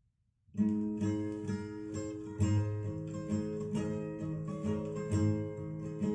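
Acoustic guitars playing a folk intro, plucked notes over strumming, played back from a vinyl record over speakers; the music starts about half a second in.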